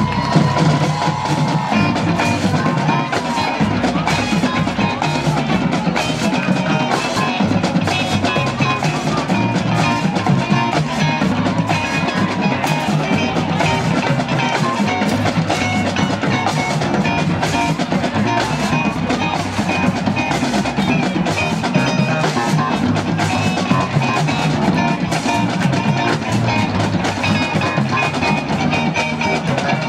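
Marching band playing a field show: wind instruments over a drumline and bass drums, with sharp drum strokes running through the music.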